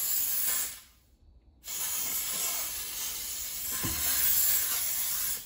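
Bissell Steam Shot handheld steam cleaner jetting steam from its nozzle in a steady hiss. It cuts off just under a second in, then starts again about half a second later.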